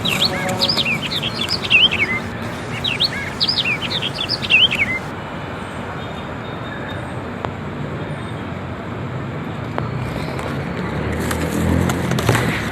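A songbird singing two quick runs of looping, up-and-down chirps over about the first five seconds, over steady background noise. A low rumble builds near the end.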